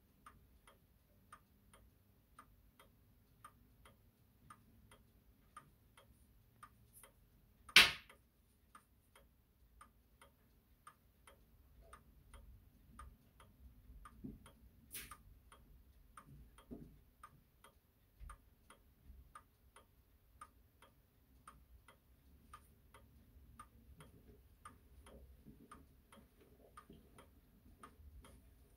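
A 1937 French Vedette wall clock ticking steadily, about three light ticks a second. There is a single sharp knock about eight seconds in and a fainter click about fifteen seconds in.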